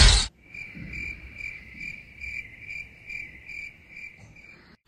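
Crickets chirping: a steady high trill that pulses about twice a second, starting and stopping abruptly.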